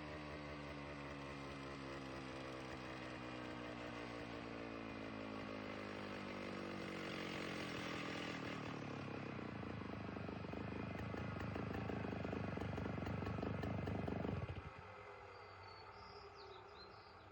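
Stump grinder fitted with Greenteeth cutter teeth chewing into a willow stump. The engine's pitch sinks steadily as it takes the load, then gives way to a dense grinding of wood. Most of the way through, the grinding cuts off suddenly and leaves a much quieter running sound.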